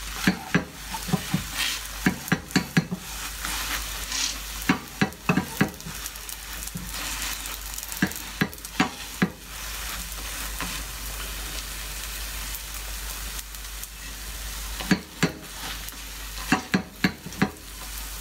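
A paratha frying with a steady sizzle in a nonstick frying pan. A silicone spatula, pressing and moving the bread against the pan, makes clusters of sharp taps and scrapes: in the first few seconds, again around 8 to 9 seconds in, and near the end.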